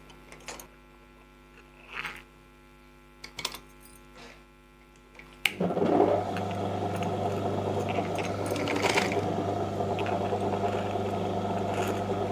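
A sewing machine starts up suddenly about halfway through and runs steadily, stitching the gathers into a puff sleeve. Before it starts there are a few faint clicks while the cloth is set under the foot.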